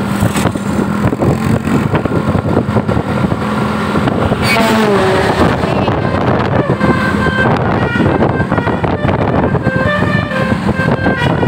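A tour bus's Basuri 'telolet' musical air horn playing a tune of short stepped notes over loud bus engine and road noise. A sliding note falls in pitch about four and a half seconds in.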